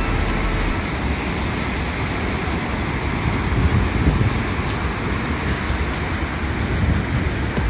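Steady rush of turbulent water pouring out below a dam, a constant noisy roar with heavy low rumble.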